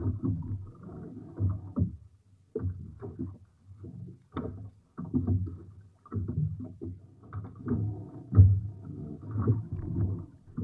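Gusty wind buffeting the microphone in uneven low rumbling bursts, with brief lulls between gusts, over water sloshing against a small boat.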